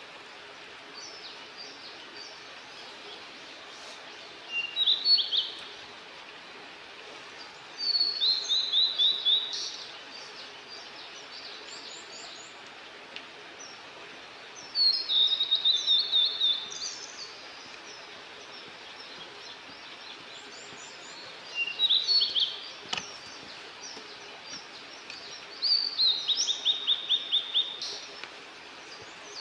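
A small bird singing nearby: five short high song phrases, each a brief lead-in followed by a fast run of repeated chirping notes, spaced several seconds apart. A steady outdoor hiss lies underneath.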